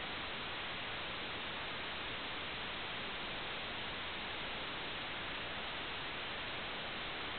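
Steady, even static hiss with no engine, propeller or water sound in it: the empty audio channel of an analog FPV video link.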